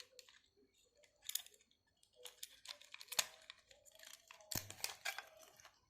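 Faint crinkling of plastic wrapping with scattered small clicks as a wristwatch is unwrapped and handled.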